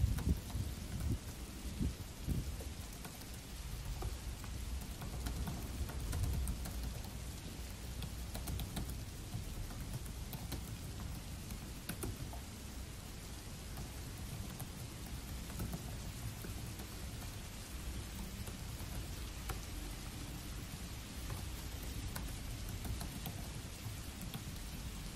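Steady rain with a low rumble underneath, loudest at the very start, and faint scattered clicks of typing on a Dell laptop keyboard.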